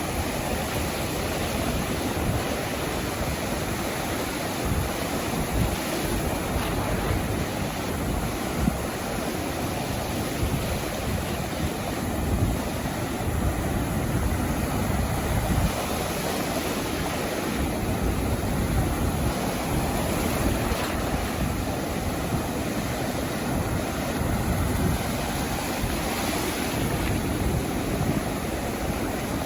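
Sea waves breaking and washing up onto a beach, a continuous surf wash that swells and eases without any single distinct crash.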